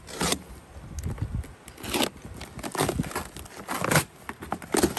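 Cardboard shipping box being slit open with a box cutter, its packing tape ripped and its flaps pulled back, in a string of short rips about once a second.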